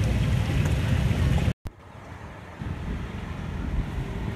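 Steady street-food-stall noise with a wok of oil on the burner, cut off abruptly about one and a half seconds in. Then wind rumbling on the microphone over faint road traffic.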